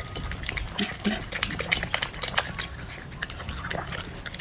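A small dog eating close to the microphone from a plate of soft steamed meat and vegetables, with quick, irregular chewing, smacking and licking clicks.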